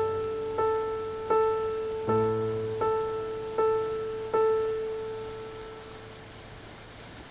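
Background piano music: slow, repeated single notes over a held bass, each note fading away, with the last note about four and a half seconds in dying out before new chords enter at the very end.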